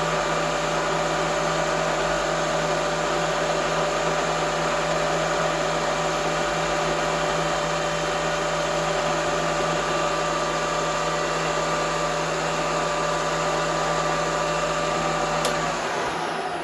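Knee milling machine's spindle motor running steadily, a constant hum and whine. Near the end there is a sharp click and the spindle winds down as it is switched off.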